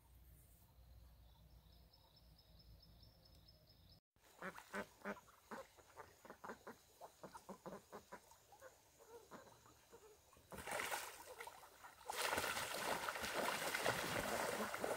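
Domestic ducks quacking in a quick, rapid string of short calls, starting after a sudden cut about four seconds in. From about ten seconds in, a louder steady rush of noise joins the quacking and is the loudest sound near the end.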